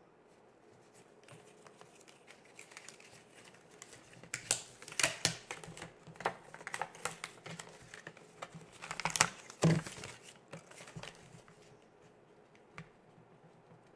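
Stiff cardstock being handled, turned over and pressed down on a tabletop: a run of light paper rustles and clicks, loudest about four to five seconds in and again just before ten seconds in.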